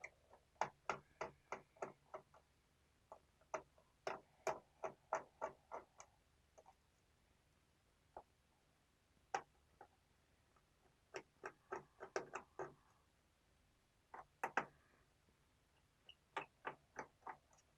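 Small screwdriver backing out the screws of a laptop's bottom cover: short runs of quick, light clicks, about three or four a second, broken by pauses.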